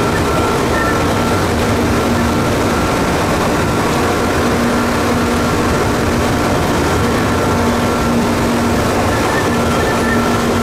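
Tokyu 8500 series electric train running at speed, heard from the driver's cab: steady wheel-and-rail noise and strong wind noise, with the series' distinctive traction-motor whine held at a steady pitch.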